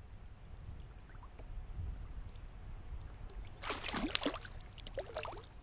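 Small hooked fish thrashing at the surface beside a kayak as it is reeled in: a burst of splashing about four seconds in, then a few smaller splashes about a second later, over a low steady rumble of wind and water.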